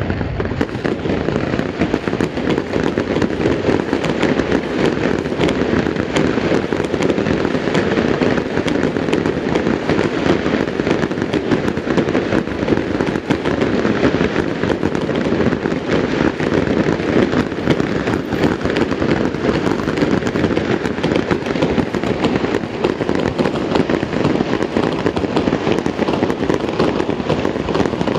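Aerial fireworks display: a dense, unbroken barrage of shell bursts and crackle, many bangs overlapping with no pause between them.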